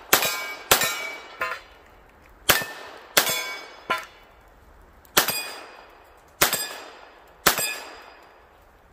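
A string of pistol shots, about nine sharp reports at irregular intervals of half a second to a second and a half, during a run through a USPSA stage. Several shots are followed by a short metallic ring, steel targets being hit.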